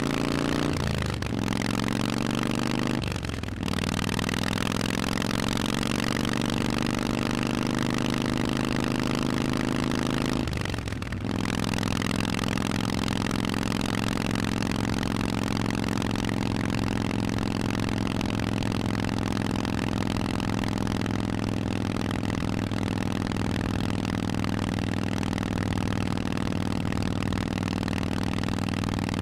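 Harley-Davidson Forty-Eight's air-cooled 1200 cc V-twin through a Vance & Hines exhaust, pulling the bike along. It upshifts three times, about a second, three seconds and eleven seconds in, and the revs climb after each shift. It then cruises at a steady speed.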